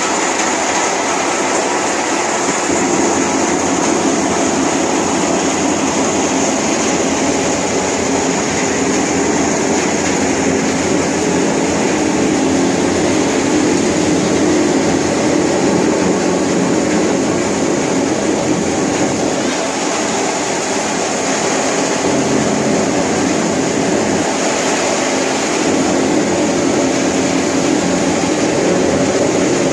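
CSJ-B rubber coarse crusher running, a loud, steady mechanical din with a constant high hiss over it.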